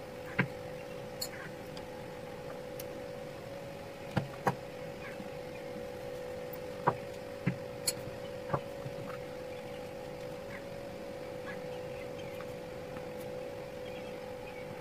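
Sharp clicks and knocks of small metal and plastic parts being handled while the switch and brush assembly is lifted out of an old electric drill's handle. There are about eight, bunched near the start and between about four and nine seconds in, over a steady faint hum.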